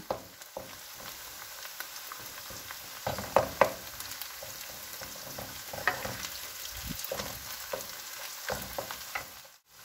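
Minced beef and chopped onion sizzling in hot oil in a pan while a wooden spoon stirs and scrapes through them now and then, the meat browning. The sound drops out briefly near the end.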